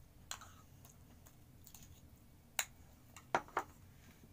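A few short, sharp clicks of a metal spoon and ceramic bowls knocking together as the dishes are handled: one soon after the start, one a little past halfway, then a louder pair in quick succession near the end.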